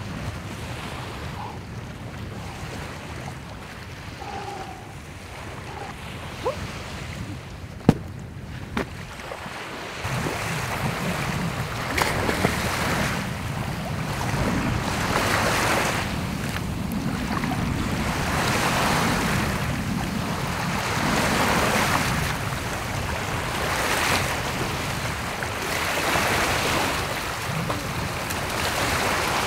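Small waves washing onto the beach, the surf swelling and falling back every few seconds; it comes in about a third of the way through, after a quieter stretch with a single sharp knock.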